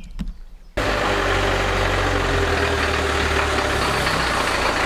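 Land Rover Series IIA engine running steadily, starting abruptly about a second in, as the vehicle is driven at low speed.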